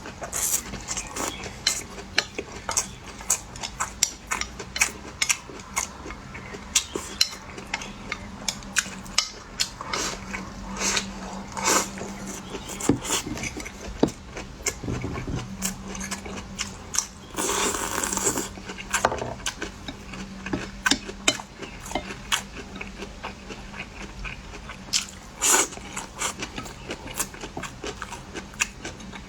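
Close-miked eating: irregular bites, chews and small clicks of utensils against a bowl, with a denser noisy stretch of about a second a little past halfway. A faint steady hum sits underneath.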